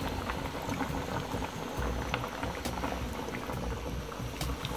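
Breaded chicken Kiev cutlets deep-frying in hot fat: a steady sizzle with scattered pops and crackles.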